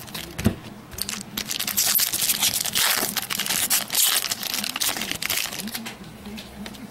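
Foil wrapper of a trading-card pack being torn open and crinkled, a dense crackling that is loudest through the middle few seconds.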